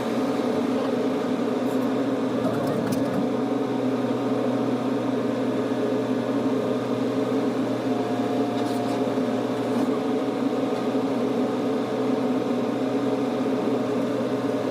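Small excavator's engine running steadily at a constant speed.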